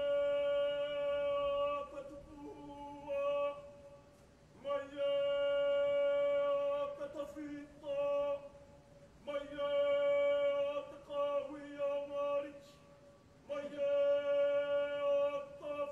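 A single voice chanting a slow call in long held notes on one pitch, each a second or two long with short breaks between, some ending in a drop in pitch: the solo call that opens a Māori kapa haka entrance item.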